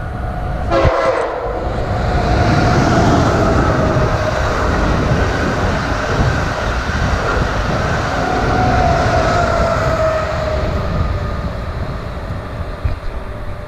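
Amtrak Acela Express high-speed trainset passing close at speed: a loud rush of wheels on rail and moving air, with a steady whine that slowly falls in pitch. It eases off near the end.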